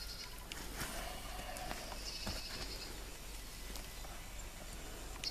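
Burning tinder bundle of shredded bark crackling and rustling as hands push it into a teepee of split kindling, with scattered sharp clicks. A high, rapid trill comes twice in the background.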